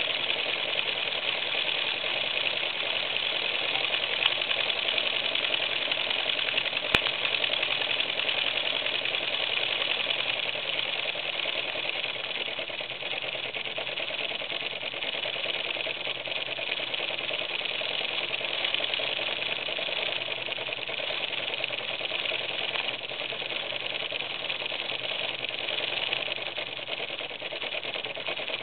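Gakken kit toy steam engine, a small oscillating-cylinder engine fired by an alcohol lamp, running steadily at speed. A single sharp click comes about seven seconds in.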